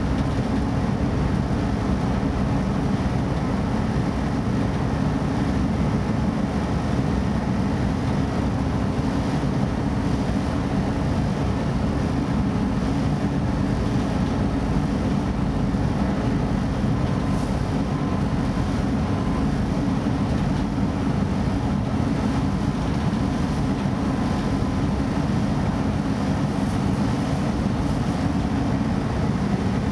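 Steady low rumble of a DB class 633 PESA Link diesel multiple unit travelling along the line, heard from inside the passenger compartment.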